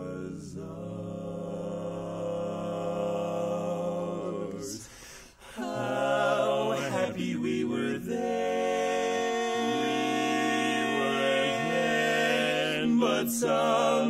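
Male barbershop quartet singing a cappella in close four-part harmony, holding long sustained chords. The sound drops almost to a pause about five seconds in, then new chords swell in and are held.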